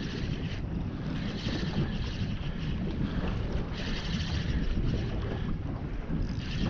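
Wind buffeting the microphone over water slapping against the hull of a small open boat on a choppy river.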